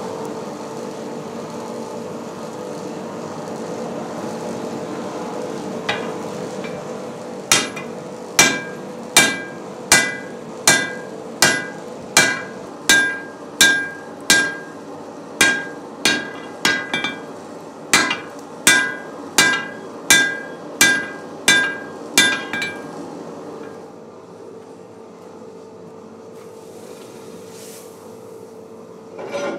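Blacksmith's hammer striking a red-hot iron bar on an anvil, about twenty blows at an even pace of roughly one and a half a second. Each blow rings briefly, and then the hammering stops. A steady hum runs underneath throughout.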